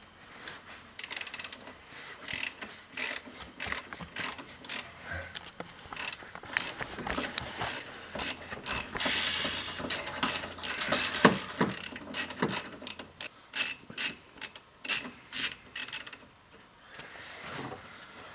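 Socket ratchet clicking in a quick, even run of strokes, about two to three clicks a second, as a 19 mm pinch bolt is undone anti-clockwise from the bottom of a Ford Ka's front suspension strut. The clicking stops shortly before the end.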